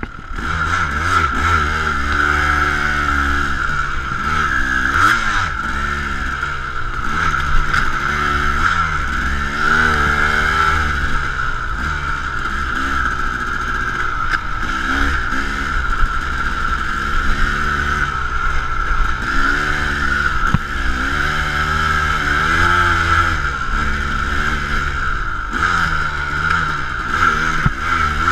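KTM 250 dirt bike engine, heard on board, revving up and falling back again and again as the rider works the throttle along the trail. A steady hiss and a low rumble run under it.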